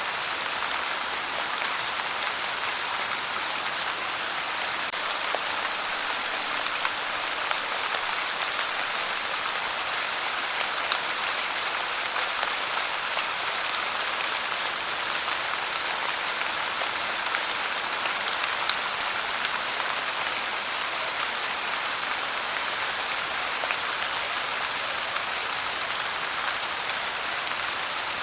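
Steady pouring rain: a dense, even patter of drops that keeps up without a break.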